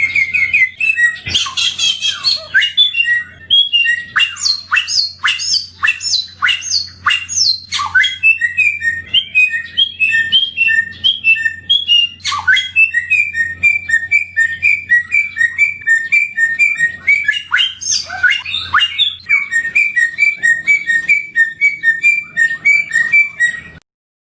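Samyong songbird singing a varied, rapid song. A few seconds in it gives a run of steep, downward-sweeping whistles, then long strings of quick, evenly repeated two-note chirps. It cuts off abruptly just before the end.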